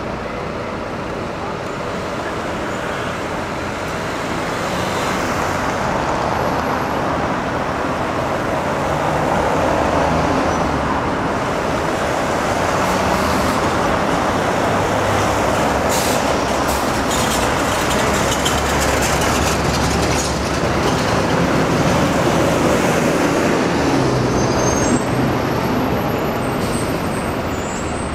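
Open-top tour bus's engine running, heard from its upper deck, over the steady noise of city street traffic. The sound grows louder a few seconds in and holds.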